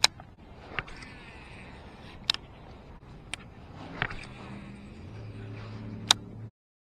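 Half a dozen sharp knocks and clicks at irregular intervals, from rod and gear being handled against a plastic fishing kayak, over low background noise. A low steady hum comes in about five seconds in, and the sound cuts off abruptly near the end.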